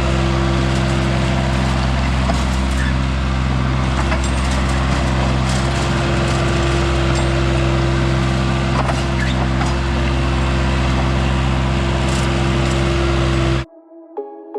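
Skid steer engine running steadily at constant speed, with a few light knocks over it; it cuts off suddenly near the end.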